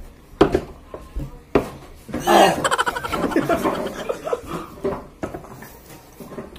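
A group of young men laughing, loudest about two seconds in, with a few sharp knocks, like glasses set down on a wooden table, in the first couple of seconds.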